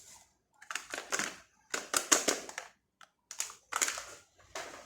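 Ice cubes being broken apart and tipped out, crunching and crackling in four short bursts.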